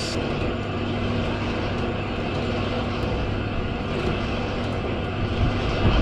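Winch motor running steadily, hauling a load up the tower: an even mechanical drone with a low hum, and a faint steady tone that fades about halfway through.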